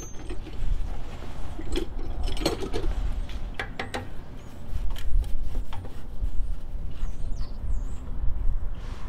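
A hand screwdriver working the screw that holds the breather on a small engine's carburetor: a few scattered sharp metal clicks and scrapes, bunched about two and four seconds in, over a low rumble.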